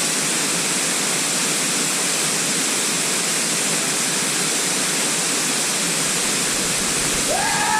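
Steady roar of a waterfall, a constant rushing noise of falling water. A gliding tone comes in near the end.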